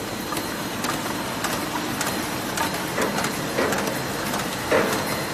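SAILI KLQ-600B automatic grooving machine running, a steady mechanical noise with sharp clicks and knocks about twice a second as boards feed through it. The knocks are loudest near the end.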